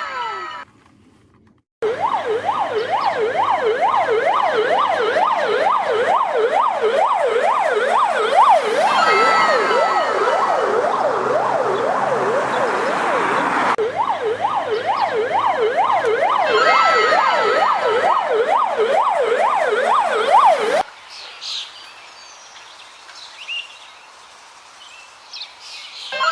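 Emergency-vehicle siren in a fast yelp, sweeping up and down two or three times a second. Twice, a short falling call sounds over it. The siren stops suddenly about 21 seconds in, leaving only faint clicks.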